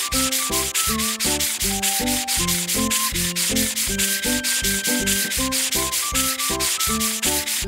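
Cartoon car-wash brush scrubbing sound effect: an even, rapid scrubbing rhythm of about six strokes a second, over background music with a bass line.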